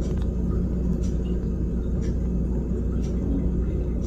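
A vehicle's engine running with a steady low rumble, with faint scattered ticks over it.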